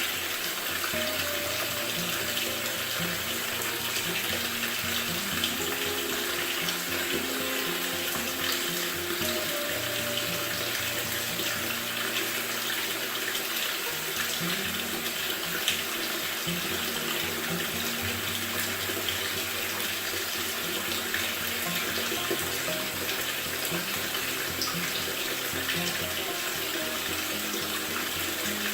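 Water rushing steadily into a Maytag top-load washer's tub as it fills. Soft background music with slowly changing low notes plays underneath.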